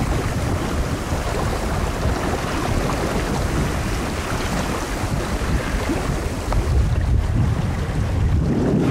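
Wind buffeting the microphone over the rush and slap of choppy water against the hull of a Montgomery 15 sailboat under sail.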